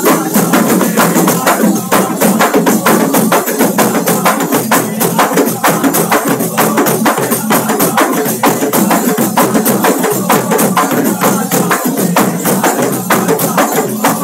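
Several hand-held frame drums (daf) beaten together in a fast, steady rhythm.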